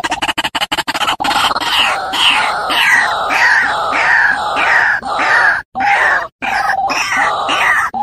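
White-breasted waterhen calling: a fast run of rapid pulses that changes about a second in into repeated 'ruak' notes, two or three a second, with a few short breaks near the end.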